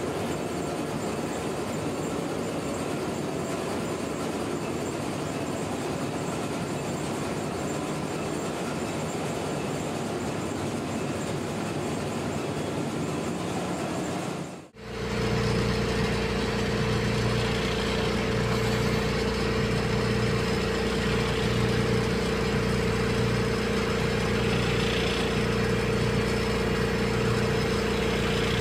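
Ship's engine-room machinery running: a loud, steady, even noise, then after a brief dropout about halfway through, a steady hum with several held tones and a low throb that swells and fades every second or two.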